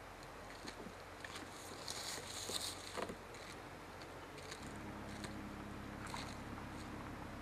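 American black bear stepping through dry leaf litter and tearing at skunk cabbage, heard as faint scattered crackles and ticks, busiest a couple of seconds in, over a steady low hum that gets louder past the middle.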